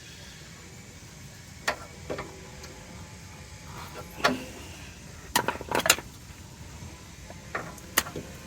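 Scattered sharp metallic clicks and clinks from a hand grease gun being worked onto the grease fitting of a car's idler arm, with a quick cluster of clicks about halfway through.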